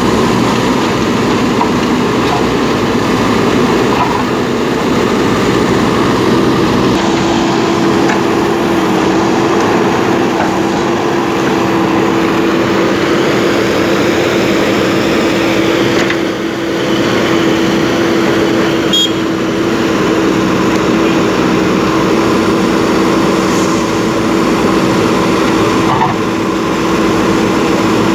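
Diesel engine of a JCB backhoe loader running steadily under working load, with a steady tone that comes in about six seconds in and holds.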